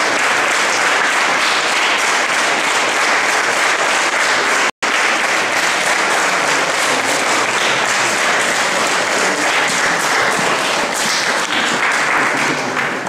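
Audience applauding steadily in a gymnasium, the clapping thinning out near the end. A split-second dropout about five seconds in briefly cuts the sound.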